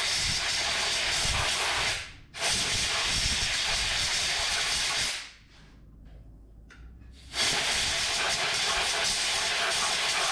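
Compressed air hissing in long blasts, clearing dirt from around a small engine's spark plug before it is removed so nothing falls into the cylinder. One blast ends about 2 seconds in and a second follows at once and runs for about 3 seconds. After a short pause a third begins near 7 seconds.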